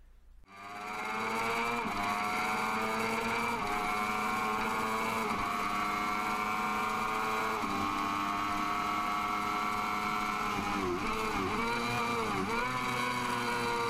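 Sport bike engine at high revs, heard from an onboard camera over rushing wind. It climbs through the gears with short dips at each upshift, then near the end drops through several quick downshifts with throttle blips.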